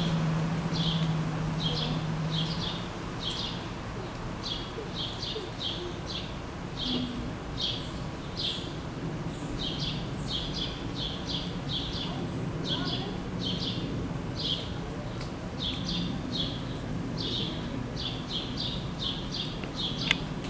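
A bird chirping over and over, short high chirps at about two to three a second, over a steady background hum of noise. A low steady hum sounds for the first two seconds or so.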